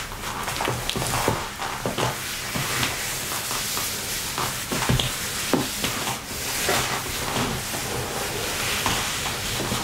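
Silky satin cheongsam fabric rustling and swishing as hands stroke and rub it and the body moves inside it. It makes a continuous soft hiss with many small crinkly ticks.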